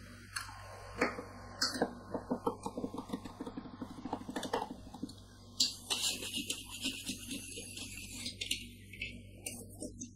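Two metal spatulas chopping and scraping a coffee ice cream base on the cold steel plate of a rolled-ice-cream pan: quick metallic taps, several a second, mixed with scraping rasps.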